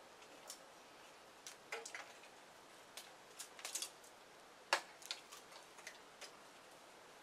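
Irregular sharp clicks and snaps of twigs and bark cracking as someone climbs into the tree, about a dozen in all, with the loudest a little past the middle.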